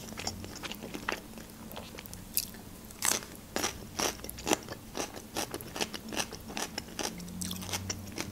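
Close-miked chewing of pan-fried pelmeni: crunchy bites, a few at first and then in quick succession from about three seconds in.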